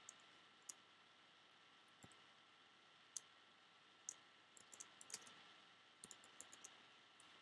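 Faint computer keyboard keystrokes over near silence: a few scattered taps, then two short runs of quick key clicks as a short word is typed.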